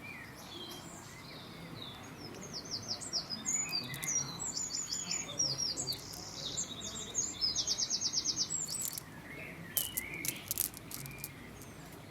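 Small birds chirping in quick runs of short, high, sweeping notes, busiest from about two and a half to nine seconds in, over a faint steady background hiss. A few sharp clicks come near the end.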